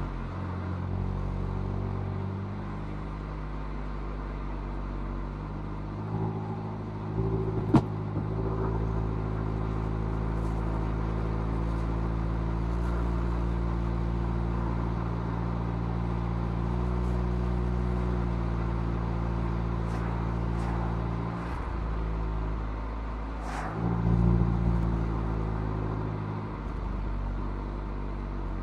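Mazda MX-5's four-cylinder engine and stock exhaust running steadily under load, heard from outside the cabin. The engine note drops out briefly and picks up again twice near the end, and a single sharp click sounds about eight seconds in.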